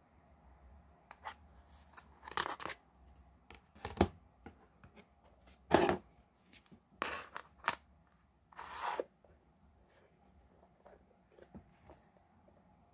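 Pieces of a model diorama kit being handled: a series of short scrapes, rustles and light knocks as wall, roof and window-frame panels are lifted, slid and set down. The sharpest knock comes about four seconds in, the loudest scrape around six seconds in.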